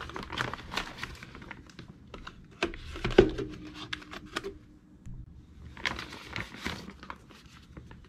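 Small cardboard boxes of 7.62x39 ammunition scuffing, tapping and rustling as they are slid by hand into a steel .50 cal ammo can. A sharp knock about three seconds in sets the can ringing briefly.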